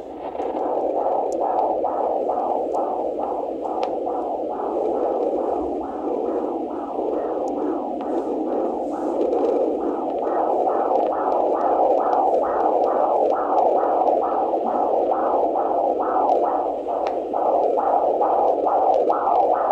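Handheld fetal Doppler monitor playing an unborn baby's heartbeat at 38 weeks of pregnancy: a steady hiss with a fast, even pulse of a little over two beats a second.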